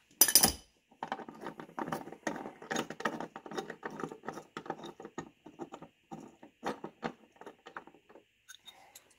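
Hand socket ratchet clicking rapidly in short runs as a door striker bolt is driven into a car's door pillar, with a sharp metallic clatter just after the start.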